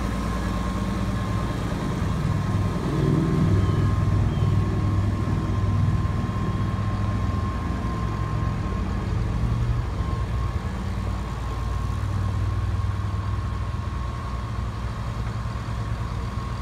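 Farmall 856 tractor's six-cylinder diesel engine running steadily. It swells louder about three seconds in as it takes load, and grows fainter near the end as the tractor moves off.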